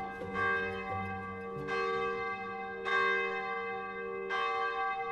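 Church bells ringing, with four strokes about a second and a quarter apart, each ringing on under the next.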